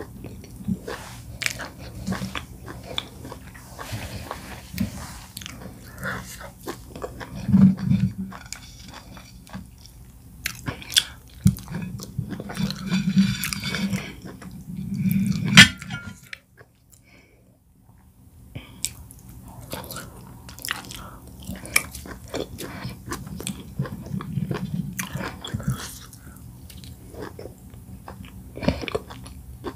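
Close-miked eating sounds: chewing of oat fufu and bitterleaf soup, with many wet mouth clicks and smacks and low swallowing sounds. The sound drops out almost to silence for about two seconds around the middle, then the chewing resumes.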